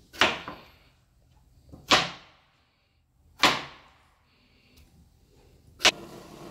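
Chef's knife chopping through potato onto a plastic cutting board: four sharp chops about a second and a half apart, each with a short fading tail.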